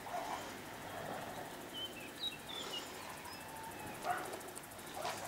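Faint open-air countryside ambience, with a few short bird chirps about two seconds in.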